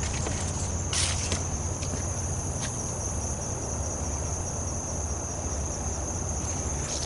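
A steady, high-pitched insect chorus of crickets or katydids, droning without a break. A few short knocks or clicks cut through it, the loudest about a second in.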